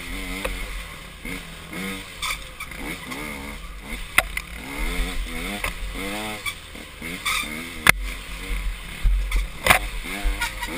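Dirt bike engine revving up and falling back over and over as it is ridden along a twisty trail, with a few sharp knocks, the loudest about eight seconds in. A low rumble of wind on the microphone runs underneath.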